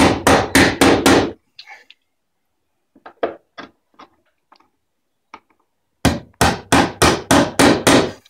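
Hammer tapping a flathead screwdriver to chip old paint out of the screw slots on a sash-window pulley: quick runs of sharp taps, about four or five a second, then fainter scraping clicks for a few seconds before another run of taps.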